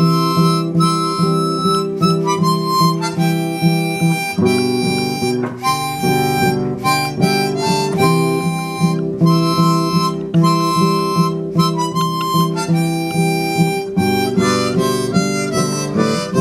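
Harmonica playing a solo melody over steadily strummed acoustic guitar: an instrumental break in a slow cowboy song.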